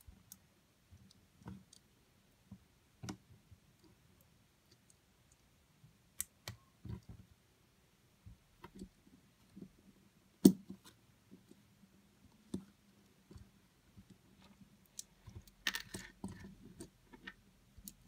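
Lego set 60139 pieces being handled and pressed together: scattered small plastic clicks and light knocks, the sharpest about ten seconds in and a busier run of rattling clicks near the end.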